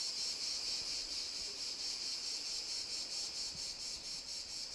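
Crickets chirping in a steady chorus, a high, rapid, evenly pulsing trill.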